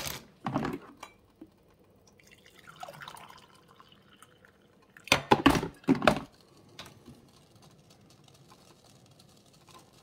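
Hot coffee poured from a glass coffee-maker carafe into a ceramic mug, a soft stream about three seconds in. A cluster of loud clunks and clatter about five to six seconds in, the loudest sound here, as the carafe is set back down.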